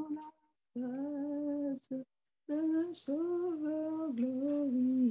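A woman singing a slow song unaccompanied, holding long notes in short phrases with brief pauses between them.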